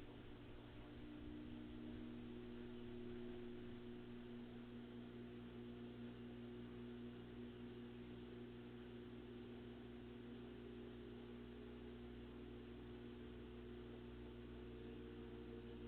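Samsung WF45K6500AV front-load washer running, a faint steady motor hum with a few tones that creep slowly upward in pitch as the drum speeds up.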